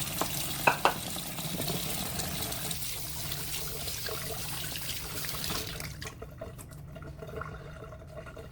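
Kitchen tap running while raw chicken is rinsed under it, with two sharp knocks about a second in. The running water stops about six seconds in.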